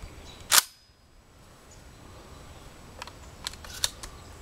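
Weatherby SA-08 12-gauge semi-automatic shotgun being handled while it is loaded: one sharp, loud metallic clang about half a second in, then a few lighter clicks around three to four seconds in.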